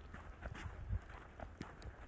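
Footsteps in fresh snow at a walking pace, with a low wind rumble on the microphone.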